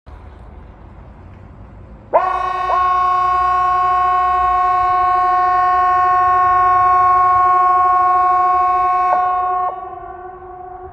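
Swedish 'Hesa Fredrik' outdoor warning siren sounding its test signal: about two seconds in, a loud, steady, chord-like tone starts abruptly and holds at one pitch for about seven seconds, then cuts off. A fainter copy of the same tone carries on afterwards over a low background rumble.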